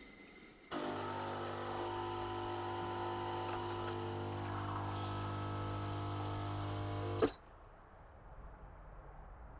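Hibrew 4-in-1 coffee machine's pump running with a steady hum while brewing ground coffee. It runs for about six and a half seconds, then cuts off with a click.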